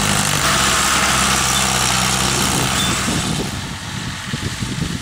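Mahindra Arjun Ultra-1 tractor's diesel engine running steadily, its note changing about half a second in. Near the end it gives way to wind rumbling on the microphone.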